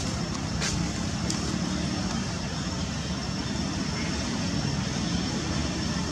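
Steady outdoor background rumble with a thin, steady high whine over it, and a few brief high chirps in the first second and a half. No monkey cry stands out.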